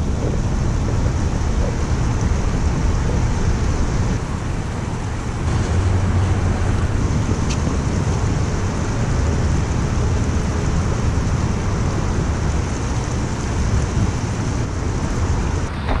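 Wind rumbling on the microphone, over the steady rush of river water and traffic on a highway bridge.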